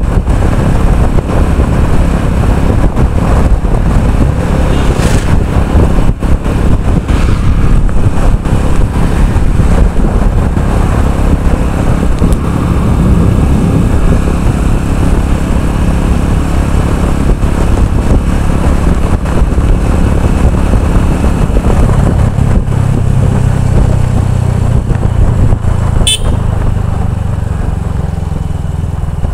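Motorcycle engine running while being ridden, heard from the rider's seat, with heavy low rumble from wind on the microphone. The engine note settles steadier in the last several seconds, and there is one brief sharp sound near the end.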